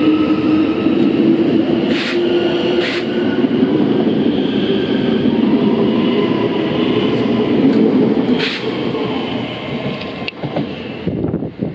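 Two coupled Z 50000 (Francilien) electric multiple units pulling away: the traction motor whine slowly rises in pitch as the train accelerates past, with a few sharp clicks. The sound fades as the train draws away near the end.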